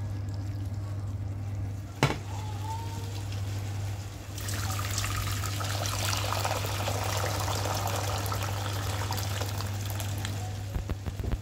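Hot water poured in a thick stream into an empty stainless steel pot, starting about four seconds in and running for about six seconds. Earlier there is a sharp click about two seconds in, and a steady low hum runs underneath throughout.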